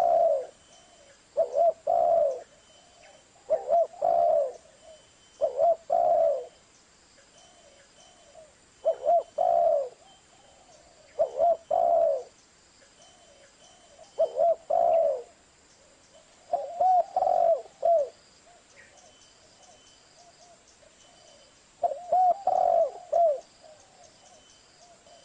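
Spotted dove (Streptopelia chinensis) cooing: short phrases of two or three low coos, repeated about every two seconds, with a few longer pauses between them.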